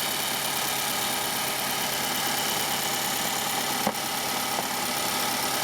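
Infiniti M56's VK56VD V8 engine idling steadily, heard from the open engine bay, with one sharp click about four seconds in.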